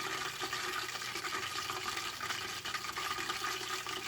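Hot oil in a deep fryer bubbling and crackling steadily around a frozen hamburger patty, with a fast, even patter of small pops.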